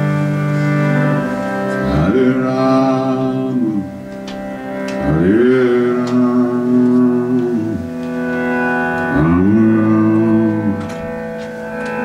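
Slow music with singing: three long held notes, each sliding up at its start, over a steady drone.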